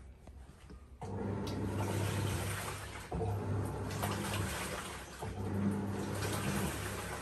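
Samsung top-load washing machine running a wash cycle: the motor starts about a second in with a low hum over water swishing in the drum, the hum breaking briefly every couple of seconds.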